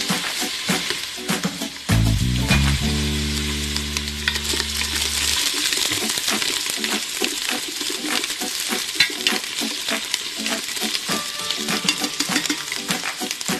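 Sliced mushrooms sizzling in hot oil in a pot, with a wooden spatula clicking and scraping against the pot as they are stir-fried. A low held musical chord sounds from about two to five seconds in.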